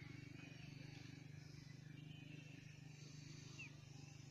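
Near silence: a faint, steady low hum with a few faint, short high chirps.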